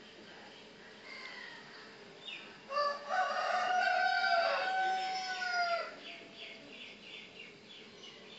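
A rooster crowing once, a long call of about three seconds that drops in pitch at the end, followed by a faint rapid series of high chirps.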